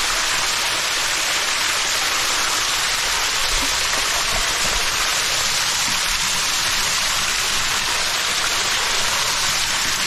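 Mountain stream water cascading over rocks, a steady even rush.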